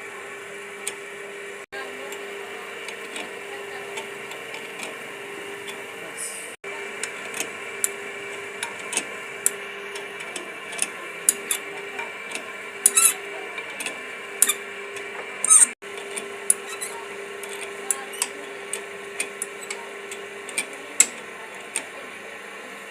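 Hand tools working on metal motorcycle parts: sharp, irregular clicks and taps, some loud, over a steady hum. The clicking grows frequent from partway through.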